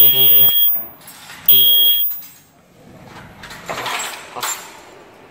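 Ultrasonic welder's 20 kHz horn run in test mode: a shrill steady whine with a low buzz beneath it. It cuts off under a second in and sounds again briefly about a second and a half in. Near the end come a few clinks and rustles of metal parts being handled.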